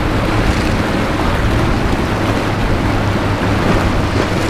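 Steady hum of a rigid inflatable boat's outboard motor under way through choppy water, mixed with waves washing and wind buffeting the microphone.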